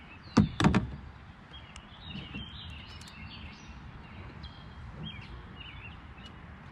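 Small birds chirping repeatedly over steady outdoor background noise. Two loud sudden knocks come close together about half a second in.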